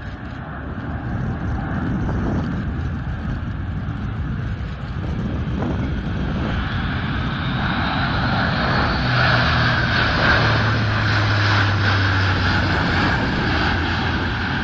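Airbus A400M Atlas's four TP400-D6 turboprop engines and propellers during a display flypast, the drone growing louder from about six seconds in as the aircraft comes closer, loudest around ten to twelve seconds, with a low steady hum under it.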